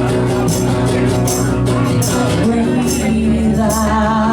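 A rock band playing, with sustained bass notes under cymbal hits about twice a second; a held, wavering note comes in near the end.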